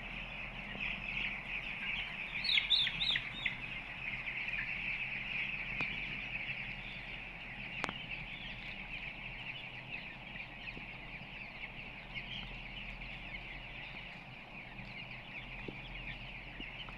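A flock of two-week-old broiler chicks peeping continuously, with a burst of louder, higher calls about two and a half seconds in. There is a steady low hum underneath and two sharp clicks in the middle.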